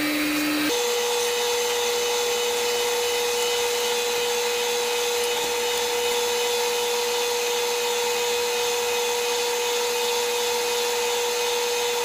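Lathe running steadily with a single whine while polishing sandpaper is held against the spinning resin pen blank, with a hiss of rubbing above the motor. The whine steps up in pitch about a second in.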